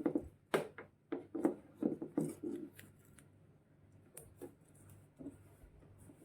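Short clicks, scrapes and rubbing from hands working on the washing machine: a quick run of them in the first three seconds, then only a few scattered clicks.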